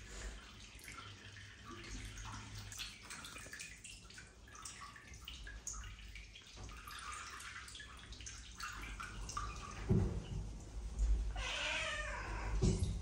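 Wet domestic cat meowing once near the end, while being held and towelled after a bath. Before that come faint rubbing and handling noises with a few low thumps.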